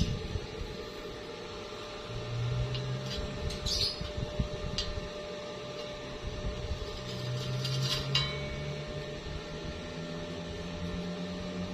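Steady machine hum with a constant tone, a few brief low swells and scattered light clicks.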